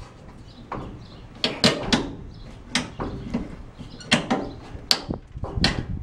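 Screwdriver working a screw in a diamond-plate steel step: about ten sharp, irregular metal clicks and knocks.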